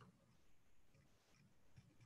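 Near silence: faint room tone during a pause between spoken phrases.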